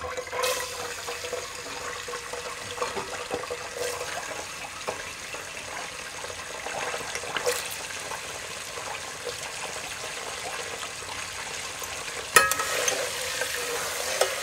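Chopped coconut pieces frying in hot oil in a pot: a steady sizzle with scattered small crackles. About twelve seconds in, a sharp clank as the spatula strikes the pot.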